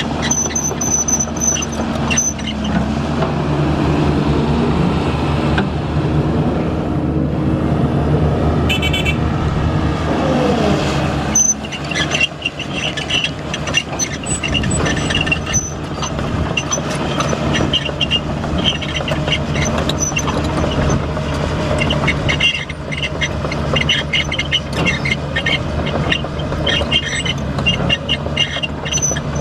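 Heavy construction machine's diesel engine running steadily, with frequent metallic clanks and rattles that grow busier about halfway through.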